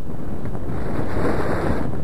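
Wind rushing over the camera microphone in paraglider flight, a steady buffeting roar that swells louder for about a second in the middle.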